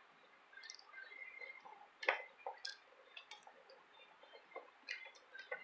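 Faint scattered clicks of spring-loaded speaker-wire terminals being pressed open and snapping shut as e-match leads are fitted, with small handling sounds of the wire; the sharpest click comes about two seconds in.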